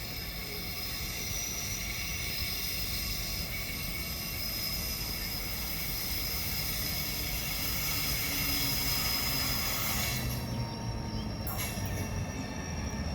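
Passenger train hauled by a WAP7 electric locomotive running in on the rails, a low rumble of wheels on track that grows slowly louder, with a thin steady high-pitched whine above it.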